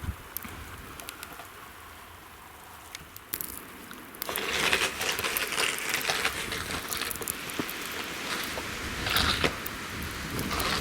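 Blizzard wind and blowing snow: scattered ticks and a soft hiss at first, then about four seconds in a sudden, louder rush of wind with dense crackling.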